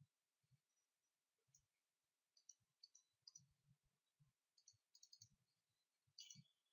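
Near silence with faint computer mouse clicks, some in quick double-click pairs, as a file is picked in an upload dialog.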